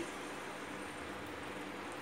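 Steady, even sizzle of raw banana pieces cooking in oil in a steel pan.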